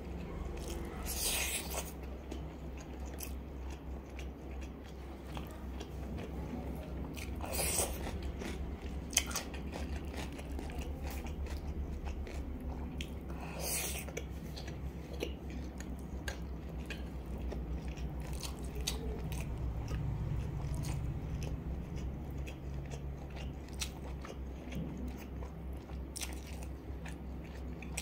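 Close-miked mouth sounds of a person eating grilled pork sausage and black-bean instant noodles: steady wet chewing with small clicks, and a few louder, sharper bites standing out. A steady low hum runs underneath.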